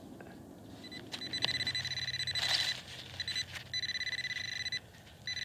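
Metal detecting pinpointer (Whites Bullseye TRX) buzzing in a dig hole: a rapid pulsing high tone that starts about a second in and cuts out briefly a few times as the probe moves through the soil. The buzz signals a metal target close to the probe. A short rustle comes a couple of seconds in.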